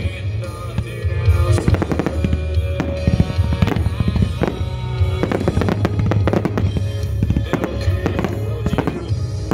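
Consumer fireworks finale: a dense, rapid run of bangs and crackling with no let-up, over music playing underneath.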